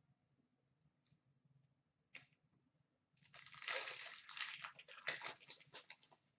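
Trading cards being handled: two faint clicks, then from about three seconds in a few seconds of crisp rustling and scraping with many small ticks.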